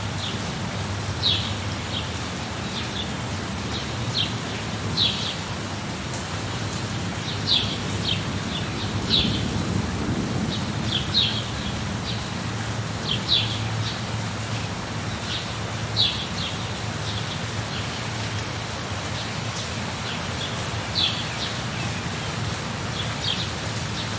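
Steady rain, with a bird giving short, high chirps every second or two over a low rumble of thunder that swells around the middle.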